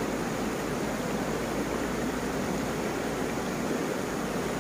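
Steady rushing of a shallow river flowing over rocks and stones.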